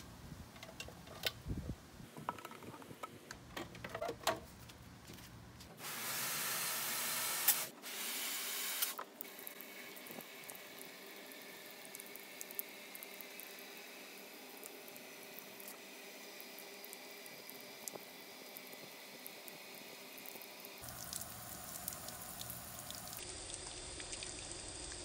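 A few clicks and knocks as a clear plastic La Crosse rain gauge is handled and set down. Then water splashes onto the gauge and pours over its sides in a steady hiss, loudest in a burst of about three seconds just after it starts.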